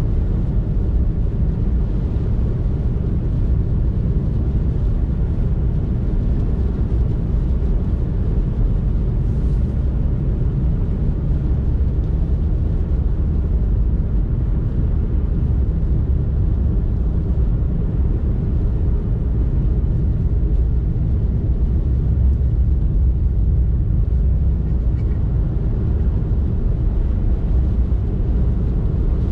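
A car driving, with a steady low rumble of engine and tyre noise.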